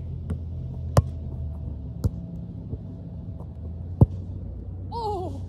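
A soccer ball being kicked: two sharp thuds about three seconds apart, with a weaker knock between them, over a steady low hum. Near the end there is a brief wavering high call.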